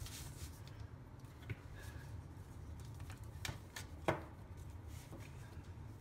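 Light handling sounds of a printed circuit board and small parts being moved and set down on a paper-covered workbench: a short rustle at the start, then scattered clicks and taps, with one sharper knock about four seconds in. A low steady hum runs underneath.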